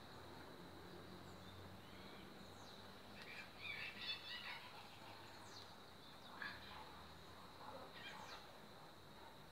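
Faint bird chirps over low background noise: a short flurry of calls about four seconds in and a few more later on.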